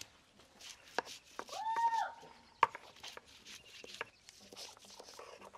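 Garlic cloves being crushed with a round hand stone on a flat grinding-stone slab: scattered sharp knocks and taps of stone on stone. About a second and a half in, a short animal call, rising and then falling in pitch, is the loudest sound.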